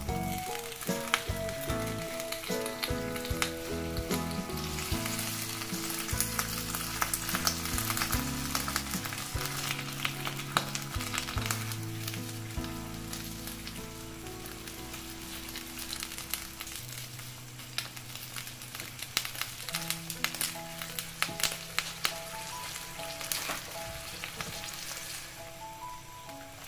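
Water boiling in a frying pan with romaine lettuce leaves blanching in it: a steady bubbling crackle of many small pops. Soft background music plays underneath.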